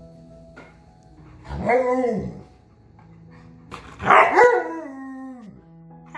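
Husky-type dogs 'talking': a short rising-and-falling woo about one and a half seconds in, then a louder, longer howling vocalisation around four seconds in that falls in pitch as it trails off. Faint background music under it.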